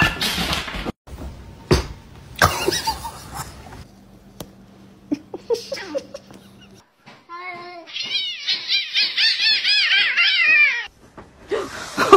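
Domestic cats in a quick run of clips: scuffling and knocking noises, then a rapid string of repeated cat cries about eight seconds in.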